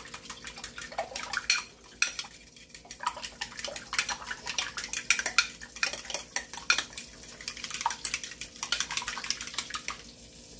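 Fork beating eggs and milk in a glass container: rapid clinks of the metal tines against the glass, in bursts with a couple of short pauses.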